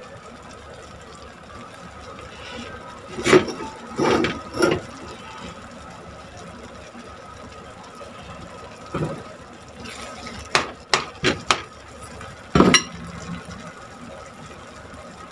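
Corned beef and diced potatoes simmering in a frying pan, a steady low bubbling hiss. It is broken by several short knocks: a few spaced about a second apart early, a quick run of four about ten seconds in, and one more near the end.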